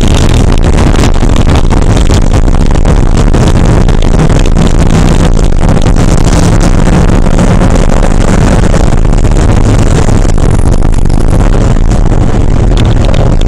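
Porsche 968's engine running under load in a club sprint race, very loud and continuous with a steady drone.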